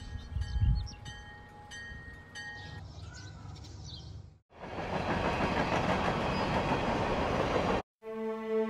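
Train sound effect: a low rumble with a short ringing ding repeating about every 0.7 s, then, after a brief break, a loud steady rush of a train going past for about three seconds that cuts off suddenly. Music starts near the end.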